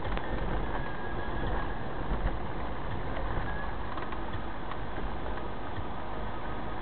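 Steady road and engine noise of a car being driven, heard inside the cabin through a dashcam's built-in microphone, mostly a low rumble. A couple of brief bumps stand out about two seconds in.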